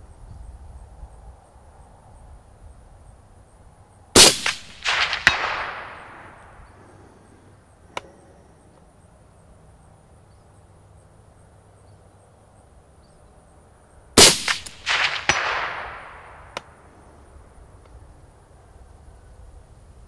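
Two shots from a suppressed Springfield M1A .308 rifle fitted with an AAC SDN-6 suppressor, about ten seconds apart, each report followed by echoes dying away over about two seconds.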